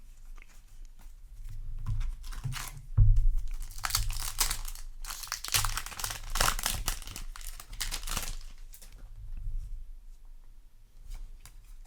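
Foil trading-card booster pack being torn open and its wrapper crinkled and rustled in a run of uneven bursts. The bursts are busiest between about two and nine seconds in, with a low bump about three seconds in.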